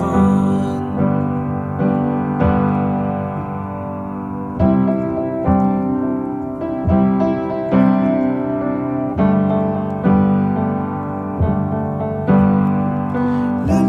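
Background music: a piano instrumental passage of a pop song, with chords struck about once a second and no singing.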